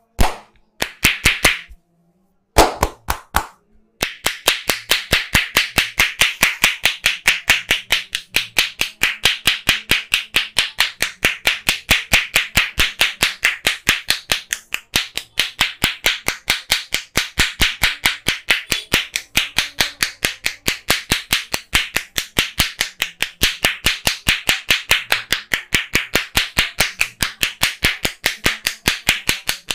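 Hands striking in a rapid percussive massage, sharp clap-like slaps at about four a second. A few short bursts come in the first four seconds, then an even, unbroken run of strikes follows.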